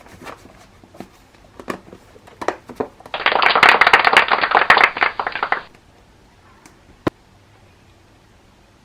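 Scattered light clicks and knocks of objects being handled, then about two and a half seconds of loud, dense crinkly rustling, like plastic packaging being crumpled or handled, ending abruptly, and one sharp click a little later.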